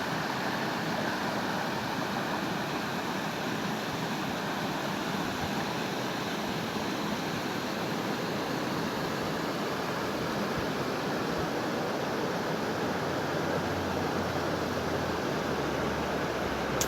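Steady, unbroken rush of fast-flowing water, the even roar of a mountain river or waterfall.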